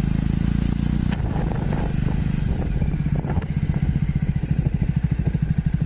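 Motorcycle engine running at a steady cruise, heard from on the bike, with a low, even pulsing beat over a haze of wind and road noise.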